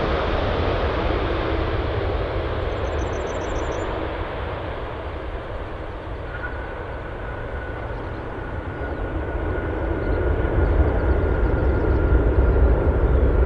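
Airbus A340 jet engines roaring steadily as the four-engined airliner lands. The roar eases to its quietest around touchdown, a faint steady whine comes in just after, and the engines grow louder again near the end as the aircraft rolls out.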